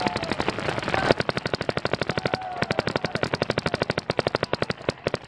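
Paintball markers firing rapidly in long, even strings of pops, many shots a second, with denser overlapping fire in about the first second.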